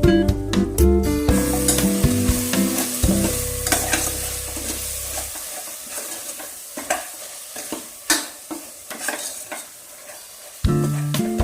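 Food frying and sizzling in a pan while a spatula stirs it, with sharp clicks and scrapes against the pan. Background music fades out over the first few seconds and comes back suddenly near the end.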